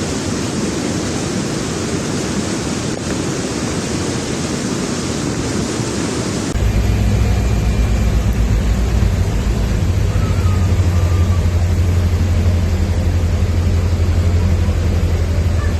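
Rushing floodwater from an overflowing ravine, a steady loud roar of hiss. About six seconds in it cuts abruptly to a deep, heavy low rumble.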